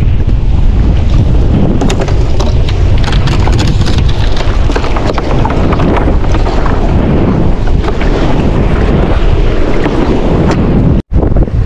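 Strong wind buffeting the microphone, a loud steady rumble, with scattered light knocks and rustles as a fishing net with floats is hauled in over the boat's side. The sound drops out for an instant near the end.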